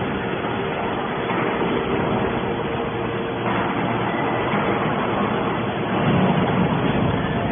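Hydraulic scrap-metal baler running, a steady mechanical hum with a constant whine, growing somewhat louder and lower about six seconds in.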